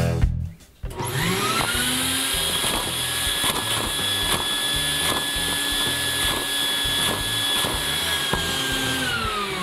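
Vacuum cleaner motor switching on, its whine rising to a steady pitch, sucking air through a LEGO vacuum engine with round pistons, with a faint regular clatter about twice a second from the engine turning over. Near the end the vacuum is switched off and its pitch falls away.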